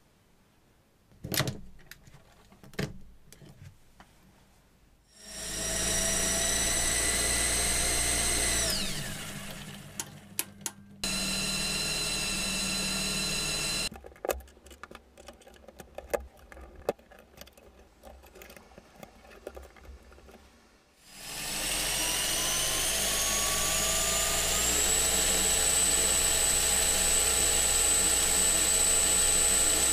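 Lego electric motors spinning propellers on a homemade quadcopter, a whine with several harmonics, run three times. The first run spins up, then winds down falling in pitch; after a couple of seconds of clicks and knocks comes a short run at a steady pitch; in the last third the whine rises in pitch and then holds steady.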